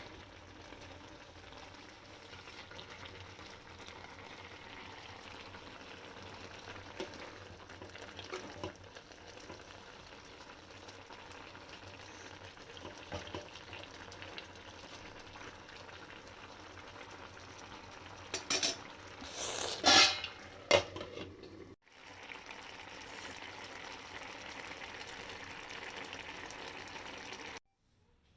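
Chicken and bamboo shoots cooking in a pot without oil, making a steady sizzle and bubble. A few sharp knocks and clatters of a utensil against the pot come about two-thirds of the way through, and the sound cuts off suddenly near the end.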